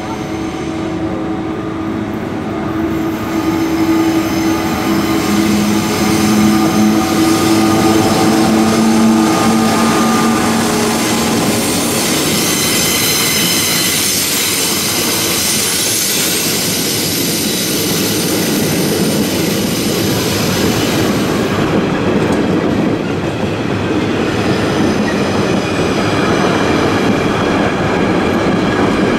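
Works train passing close at slow speed. The locomotive's steady hum comes first, then the wagons, including ballast hopper wagons, roll by with continuous wheel and rail noise. A high wheel squeal is loudest a little before the middle.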